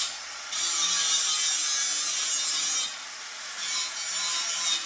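Angle grinder grinding a steel angle-iron bed rail to shape a bevel for a tighter fit. It makes a loud, hissing grind that eases off briefly at the start, and again around three seconds in while the motor keeps running, then bites hard again.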